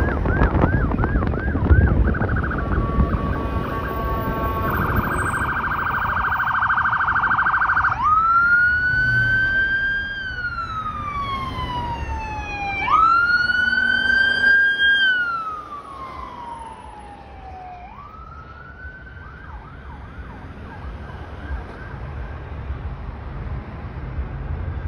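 Ambulance's electronic siren cycling through its tones: quick yelp chirps, a fast warble, then two long wails that rise and slowly fall, and a short burst of yelp near the end that fades. Low road and wind rumble from the filming car is strong under the first few seconds.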